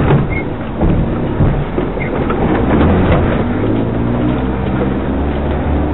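Off-road 4x4's engine running at low speed while the vehicle crawls over rough forest ground, with knocks and rattles from the body over the bumps. A spruce branch scrapes across the bonnet at the start, and the engine note grows steadier and stronger about halfway through.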